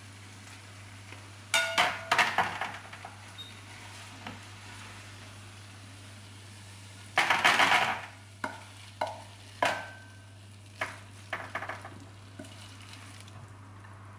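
A spatula scraping rice out of a stone-coated non-stick frying pan onto a plate: two spells of scraping and clatter, the second louder and longer, then several short knocks as the spatula taps rice off onto the plate. A steady low hum runs underneath.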